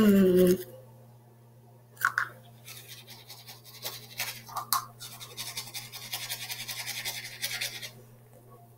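A held vocal note cuts off just after the start. A few seconds later a manual toothbrush begins scrubbing the teeth, a fast scratchy back-and-forth that stops shortly before the end.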